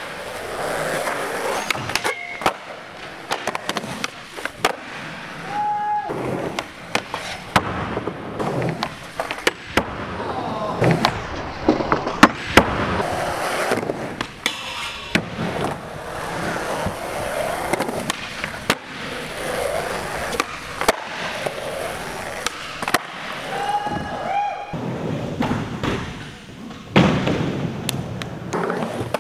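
Skateboard wheels rolling on a smooth skatepark floor, with sharp clacks of the board popping and landing tricks many times over.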